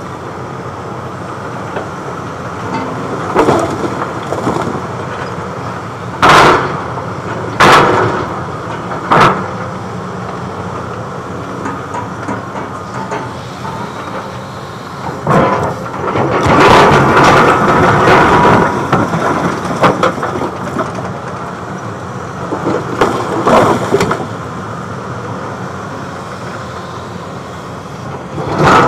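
Caterpillar tracked excavator's diesel engine running steadily as its bucket works broken concrete, with sharp cracks and knocks of slabs striking each other several times and a longer stretch of crunching and scraping a little past halfway.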